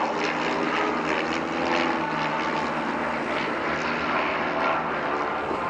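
Light single-engine propeller planes flying over in close formation, their piston engines droning steadily with several engine tones sounding together.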